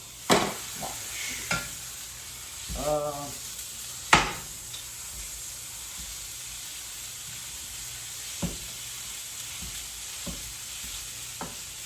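Food sizzling as it fries in a pan and is stirred, with a utensil knocking against the pan several times; the loudest knock comes about four seconds in.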